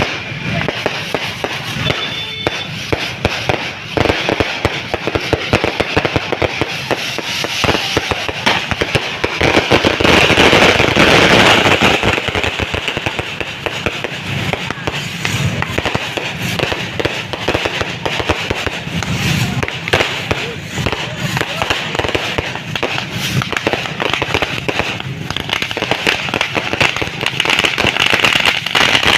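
Fireworks going off in a dense, continuous run of rapid crackles and pops, swelling loudest about a third of the way in.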